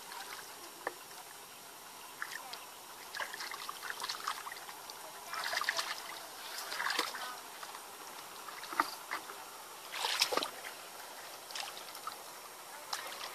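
Hands groping and splashing in shallow muddy water while feeling through the mud for fish: irregular sloshes and splashes, a few louder ones near the middle and about two-thirds of the way through.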